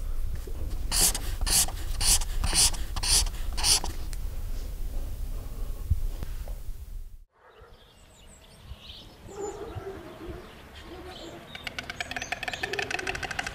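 A felt-tip marker drawn across paper in six quick scratching strokes, about two a second, over a low rumble. After a sudden cut come short chirping calls. Near the end a white stork clatters its bill in a fast, even rattle.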